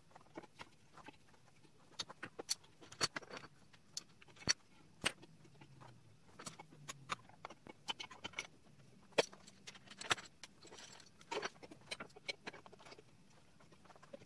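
Steel clamping hardware on a milling machine table being handled and fitted: irregular metallic clinks, taps and knocks of step clamps, studs, nuts and setup blocks, a few sharper strikes ringing briefly.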